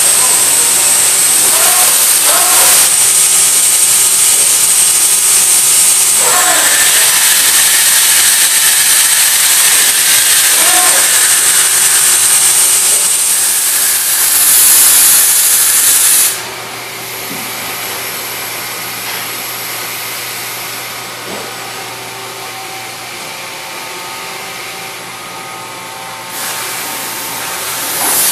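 Mori Seiki NT3200 DCG multi-tasking CNC turning and milling center running: a loud, steady hiss with a thin high whine. About sixteen seconds in it drops suddenly to a much quieter hum, and it rises again near the end.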